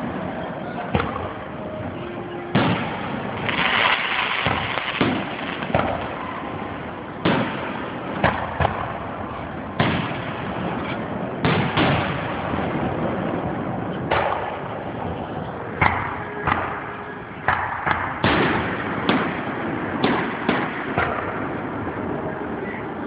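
Aerial firework shells bursting overhead: a loud, irregular run of sharp bangs, roughly one a second, some coming in quick pairs.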